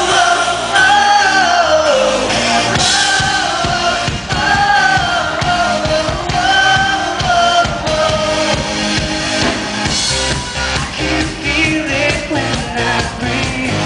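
Pop-rock band playing live: a male lead singer singing over drums, bass guitar and keyboards, heard loud from the crowd. The drum beat stands out more sharply in the last few seconds.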